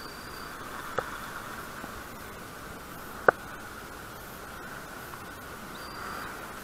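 Steady hiss, with two sharp clicks: a light one about a second in and a much louder one a little after three seconds.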